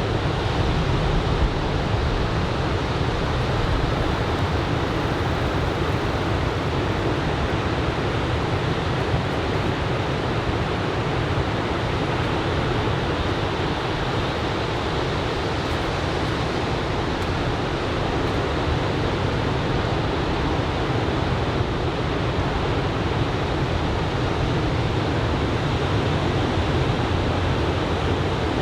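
Ocean surf from a typhoon swell: a steady, continuous wash of breaking waves with no distinct single breaks.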